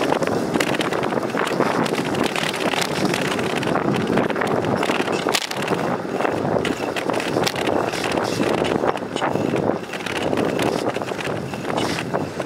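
Wind buffeting the microphone over the steady rolling noise of bicycle tyres on a concrete path, with scattered clicks.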